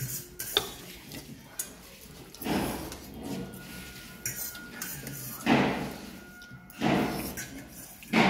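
Noodles being slurped up from forks, four long noisy slurps spread across the stretch, with light clicks of forks against steel plates in between.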